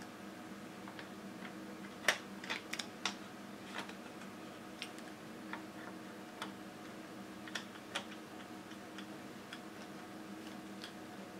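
Light, irregular plastic clicks and taps as the parts of an HP 12A-type laser toner cartridge are handled and fitted together. A quick cluster of clicks comes about two to three seconds in, then scattered single ones, over a steady low hum.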